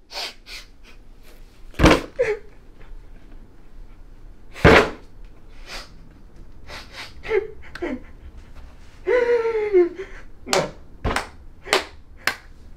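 Scattered sharp knocks and clicks, the two loudest a few seconds apart. About nine seconds in comes a short vocal moan falling in pitch, followed by a quick run of clicks.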